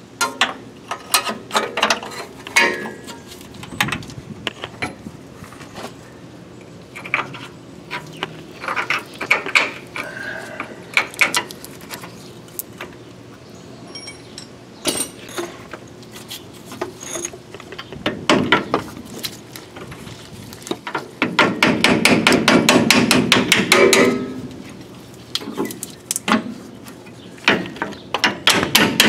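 Hand tools working a steel control-arm bolt into its mount: irregular metal clicks and knocks, with a fast run of rapid, even ratchet-like clicking about three quarters of the way through and again near the end.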